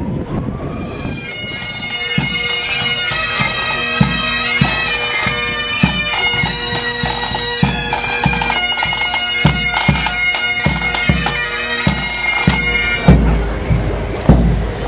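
Bagpipe music with drums: steady pipe drones under a high chanter melody, with regular drum strokes. The music stops about thirteen seconds in, giving way to a low rumble with a few thumps.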